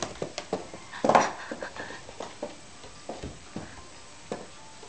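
A cat's cardboard box knocking and scraping across a hard tiled floor in a string of short, light bumps, with one louder thump about a second in.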